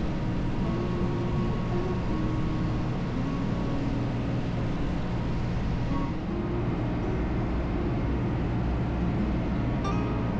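Small passenger ferry under way: its engine is running, a steady low drone with a constant rush of noise over it.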